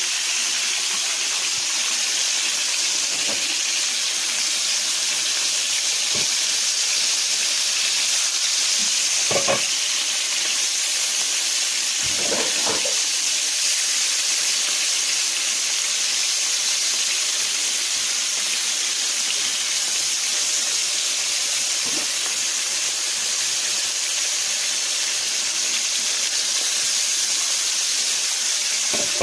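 Flour-dredged chicken liver frying in olive oil in a covered pan: a steady sizzle with a few brief pops.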